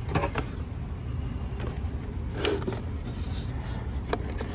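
Hand tools and their case being handled: a few light clicks and rubbing scrapes, over a low steady rumble.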